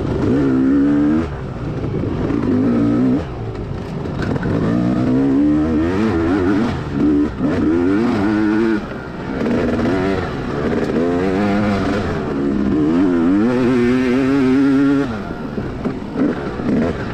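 Dirt bike engine revving hard during a race, its pitch repeatedly climbing and dropping back as the rider accelerates and backs off.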